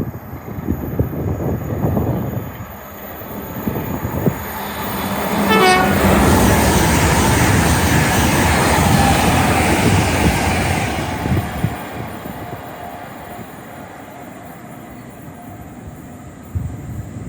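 A train passing through the station at speed, with a brief horn note as it arrives. The loud rush of wheels and air builds suddenly, holds for about five seconds, then fades away.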